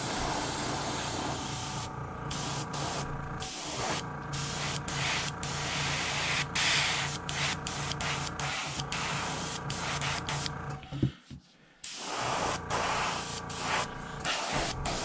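Airbrush spraying paint onto a wooden fishing lure: a hiss cut into short bursts by many brief gaps as the trigger is worked, over a steady low hum. Everything cuts out suddenly for about a second, about eleven seconds in.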